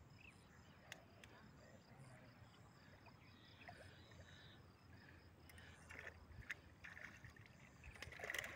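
Very faint for the first few seconds, then from about six seconds in, water splashing and sloshing in irregular bursts that grow louder toward the end as a large hooked fish thrashes in the shallows at the bank.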